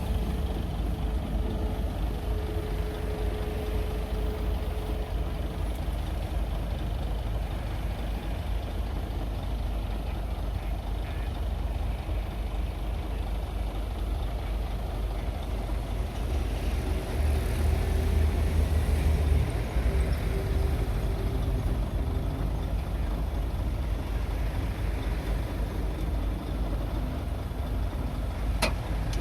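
Heavy diesel earthmoving machinery running steadily with a low rumble, swelling louder for a couple of seconds past the middle, and a sharp short click near the end.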